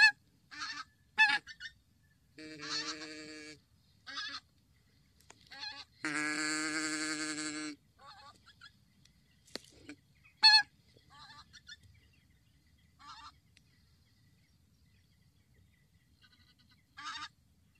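Geese honking: scattered short single and double honks, and two longer drawn-out calls about two and a half and six seconds in.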